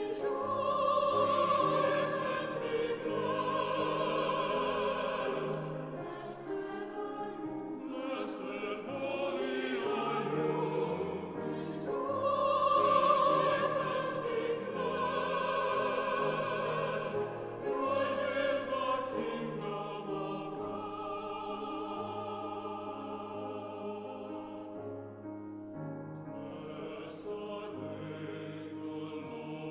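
Background music: slow classical choral piece with long held, vibrato-laden sung notes over a sustained accompaniment, swelling and fading in broad phrases.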